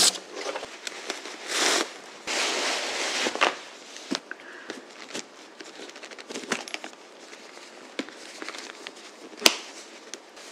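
Paper wrapping crinkling and rustling as a bag is unpacked. It is loudest in the first few seconds, then gives way to scattered light handling clicks and one sharp tap near the end.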